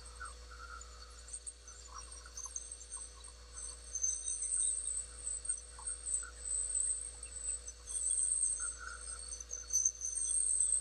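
Calipers' steel jaws rubbing on an ebony pen blank on the lathe, making a high, uneven squeak that swells and fades, with a few short lower chirps. A faint steady hum runs underneath.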